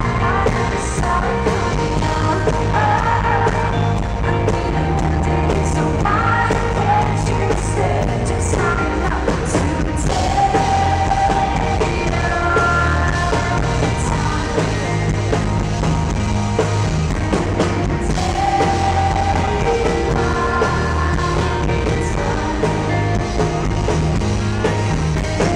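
Live rock band playing in an arena: a woman singing over electric guitars, keyboard and drums, heard from the audience.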